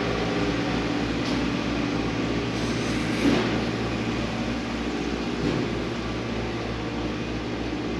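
An engine running steadily at a constant speed, with a low even throb underneath.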